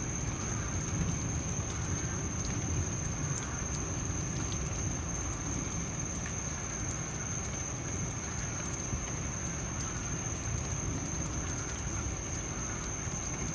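Rain falling, with fine drop ticks, over the continuous low rumble of distant thunder from a storm moving away. A thin, steady high-pitched tone runs through it.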